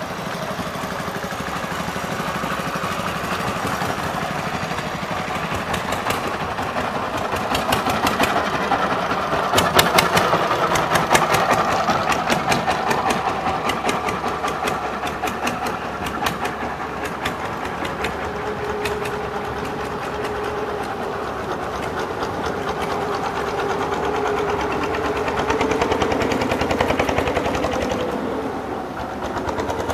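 Small motorboat engine running steadily with a rapid knocking beat, loudest about a third of the way in.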